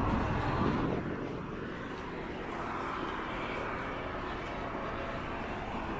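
Town street ambience: a steady hum of road traffic with wind buffeting the microphone, the rumble heaviest in the first second.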